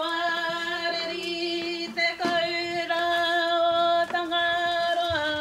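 Singing with long held notes, each sustained for a second or two before stepping to the next, with a few light knocks in between.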